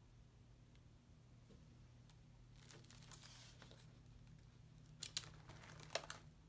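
Faint rustling of stiff, collaged paper pages being turned in a spiral-bound sketchbook: a soft rustle about three seconds in, then two sharper paper flaps near the end, over a low steady room hum.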